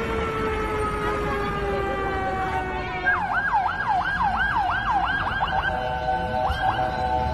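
A slowly falling held tone, then about three seconds in an emergency vehicle siren in a fast yelp, sweeping up and down about three times a second. It settles into steady tones with two more sweeps near the end.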